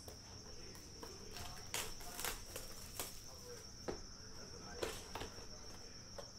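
Cardboard trading-card hobby boxes being handled: several light knocks and scuffs spread across a few seconds, over a steady high-pitched whine.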